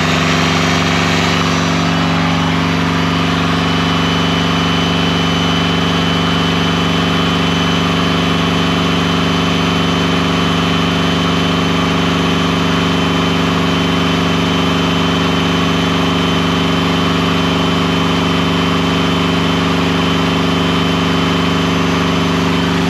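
Kubota engine running steadily at constant speed, driving a belt-driven alternator that is charging batteries under a load of about 65–70 amps.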